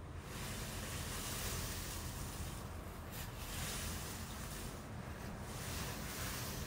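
Wind on the microphone: a steady rushing noise with low buffeting that swells and dips every second or two.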